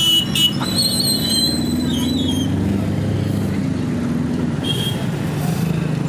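Road traffic: motor vehicle engines running close by, their pitch slowly rising and falling. A thin high whistle-like tone sounds for about two seconds near the start.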